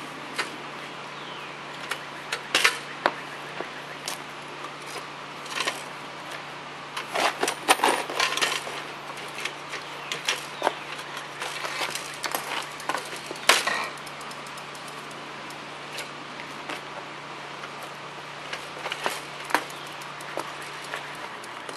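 Irregular metallic clicks and clinks of a bicycle frame and its parts being handled as the saddle and seatpost are worked loose. The clinks come in a few quick clusters, over a faint steady low hum.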